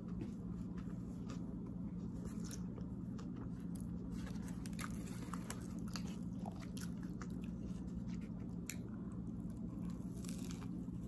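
Close-up chewing and biting of a sub sandwich, with soft crunches and small mouth clicks, over a steady low hum of a vehicle's cabin.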